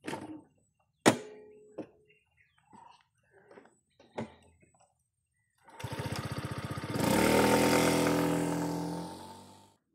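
Small 125 cc scooter engine cranked for about a second, then catching and running, its pitch settling slightly before the sound fades out near the end. A few scattered clicks and knocks come before it.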